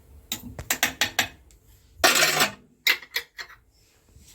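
A screw-on lid being turned onto a glass jar, with a run of sharp clicks, a short scrape about two seconds in, and a few more clicks.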